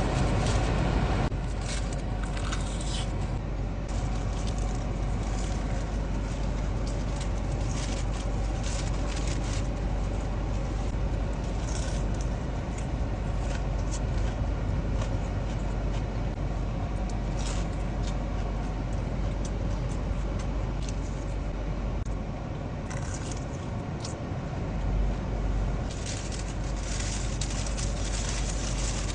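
Steady low rumble of a moving vehicle's cabin, with frequent short crackles and clicks from eating and handling food and its packaging.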